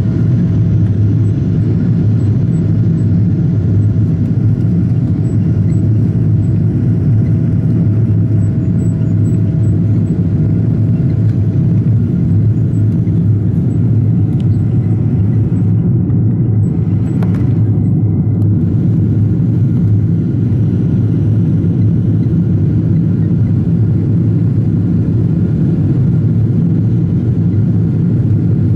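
Cabin noise of a Boeing 777-200 climbing after takeoff, heard inside the cabin at a window seat: the engines and airflow make a loud, steady low drone.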